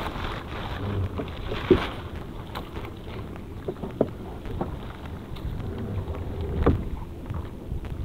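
Wet fishing net being hauled over a boat's side, rustling and dragging, with a few sharp knocks, the loudest about two seconds in. Wind buffets the microphone under a low rumble.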